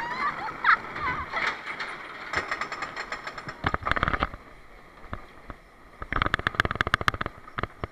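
Water-ride conveyor lift clattering as the riders are carried up it. It gives a burst of sharp clicks about four seconds in, then a quick, even run of clicks near the end.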